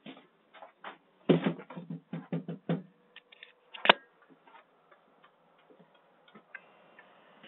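A delivery driver's footsteps and a large cardboard box being handled and set down on a concrete porch: a quick run of knocks, then one sharp click a little later. The sound is thin and narrow, picked up by a doorbell camera's microphone.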